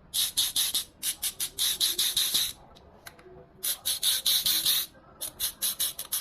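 Mountain bike rear hub's three-pawl, 120-point freehub ratcheting loudly as it spins, in three long bursts of rapid clicking that merge into a buzz. Single clicks come further apart as the bursts start and stop.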